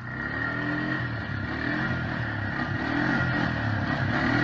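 Quad ATV engine running as it drives toward the listener, growing steadily louder, with the revs rising and falling a few times.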